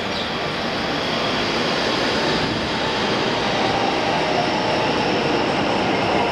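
Train running, a steady rushing rail noise that grows slightly louder.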